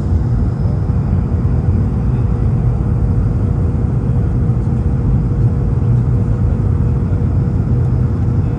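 Steady low rumble inside the cabin of an Airbus A220-300 airliner with Pratt & Whitney PW1500G turbofans, with a faint steady hum above it.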